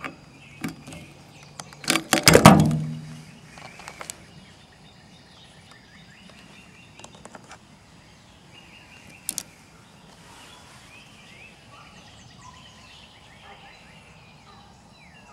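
A quick cluster of sharp metallic clicks and clatter about two seconds in, with a single click later: the high-pressure fill hose fitting of a Nomad portable compressor being handled at an AirForce air rifle's fill port. Birds chirp faintly behind it.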